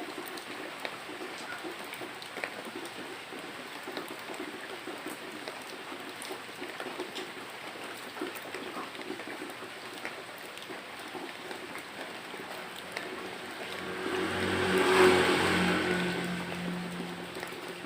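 Steady rain falling. A motor vehicle passes about 13 seconds in: its engine sound swells to a peak and fades over about four seconds.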